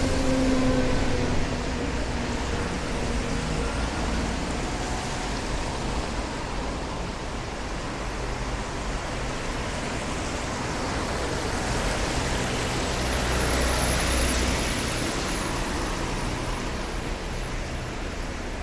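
Road traffic on rain-wet tarmac: engines and the hiss of tyres on the wet road, with one vehicle swelling louder as it passes about two-thirds of the way through.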